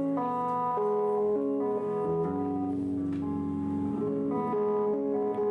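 Electric guitar played live with a clean tone, long held notes overlapping and changing from one to the next.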